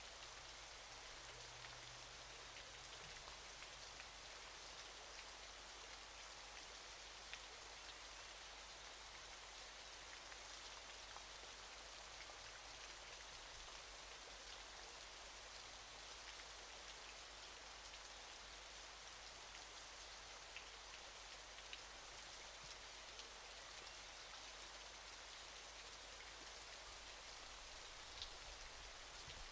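Faint, steady hiss of falling water, with scattered light drip-like ticks.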